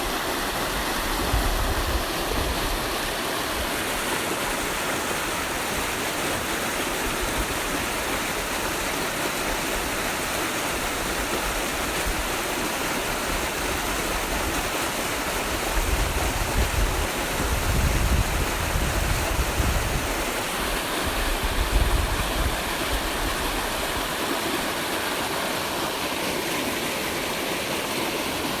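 Water flowing steadily, a continuous even rush like a stream, with low rumbles coming and going partway through.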